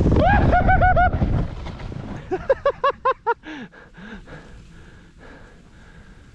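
Snowboard sliding on snow with wind rushing on the helmet microphone, which dies away about a second and a half in as the rider stops. A rider whoops in two quick runs of short, rising-and-falling yelps, about a second apart, followed by a couple of lower calls.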